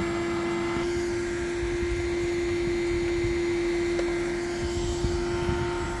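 Several Numatic Henry-style vacuum cleaners running together: a steady motor whine, one strong tone with fainter ones layered above it over a hiss of rushing air.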